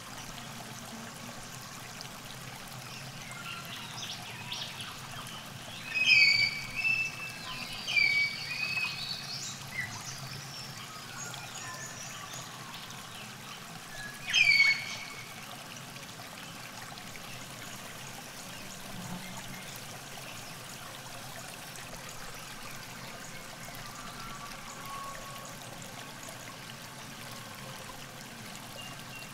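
Steady trickle of river water at the bank, with a bird giving several loud, sharp, falling calls about six to ten seconds in and once more around fourteen seconds in.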